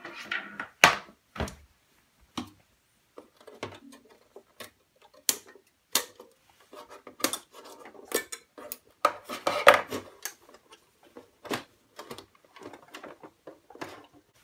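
Irregular clicks, taps and rattles of hard plastic and metal as a diecast model's black plastic display base is handled and its wire twist ties are undone with a hand tool. A sharp knock comes about a second in, and a louder burst of rattling comes around two-thirds of the way through.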